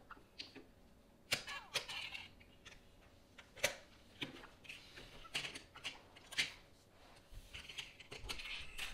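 LEGO plastic bricks being handled, snapped together and picked through on a tabletop: scattered sharp clicks and clacks, with faint rustling between them.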